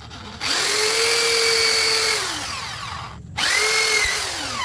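Handheld electric drill run twice. Each time it spins up to a steady whine, holds, then winds down with a falling pitch when the trigger is let go.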